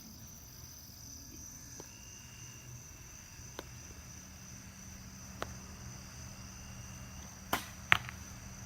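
A bow shot: a sharp snap as the string is released, then about a third of a second later the arrow striking a target 30 yards away. Insects buzz steadily underneath.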